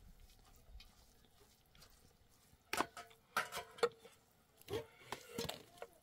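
Wooden spatula knocking and scraping against a metal cooking pot while macaroni is stirred: a quiet start, then from about three seconds in a run of short clicks and knocks, some with a brief metallic ring.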